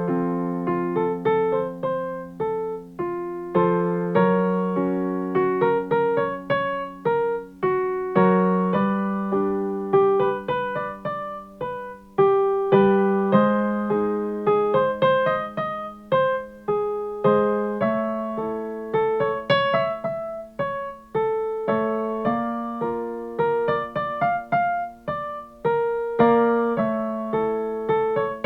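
Piano accompaniment for a vocal warm-up exercise: short repeated figures of struck notes over chords, each note fading after it is played, the pattern restarting every few seconds on a shifting pitch.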